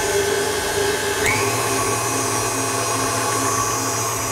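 KitchenAid Artisan stand mixer running with its wire whisk, starting to whip cold cream in the steel bowl. Its motor pitch steps up about a second in as the speed is raised, then holds steady.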